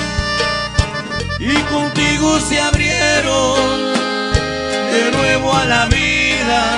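Norteño band playing an instrumental passage of a bolero: button accordion carrying a wavering, ornamented melody over bajo sexto strumming, electric bass and drum kit strokes.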